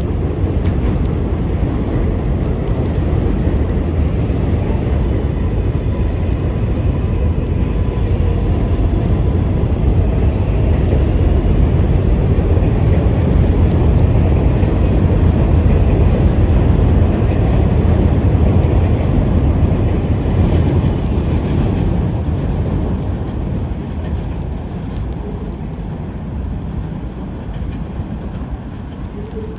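Subway train running on the track, a loud, steady rumble that builds to a peak mid-way and then fades away.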